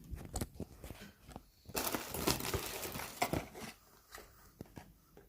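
Parcel packaging being opened and handled: irregular crinkling and rustling with a few sharp clicks, loudest in the middle and quieter near the end.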